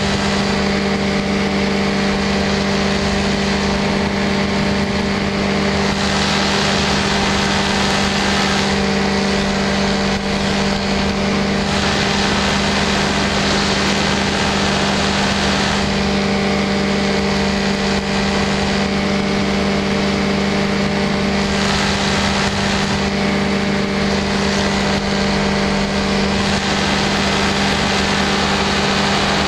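Ultralight aircraft engine and propeller running at a steady cruise, with a constant drone. Wind rushes over the microphone, growing and fading every few seconds.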